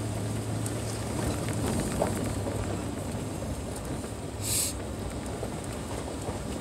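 Toyota pickup rolling down a steep grade, held back by its engine in first gear: a steady engine hum over tyre and road rumble. A short hiss comes about four and a half seconds in, and the hum fades after it.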